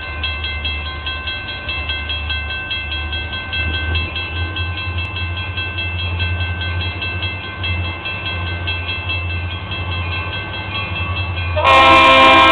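Two EMD GP40 diesel locomotives approaching with a steady low engine rumble while a bell rings rapidly and evenly. Near the end a loud air horn comes in, several notes sounding together.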